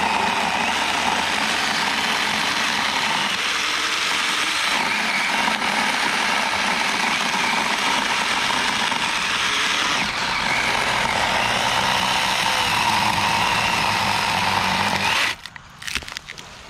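Saker mini cordless electric chainsaw (20 V, 4-inch bar) running steadily under load as its chain cuts through a tree trunk thicker than the bar. It cuts off suddenly about a second before the end, leaving only faint clicks.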